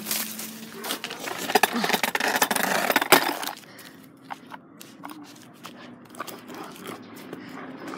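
Ripstick caster board and handheld phone in motion over pavement: a rough rushing noise full of clicks and rattles, ending in a sharp knock about three seconds in, then quieter scattered clicks.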